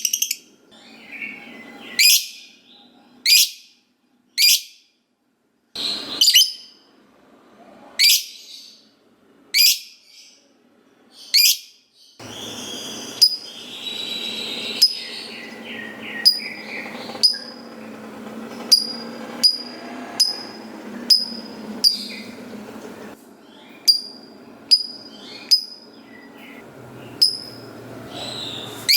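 Lovebird calling with a run of short, sharp, shrill chirps, one every second or so. From about halfway the calls come quicker over a steady bed of softer chattering.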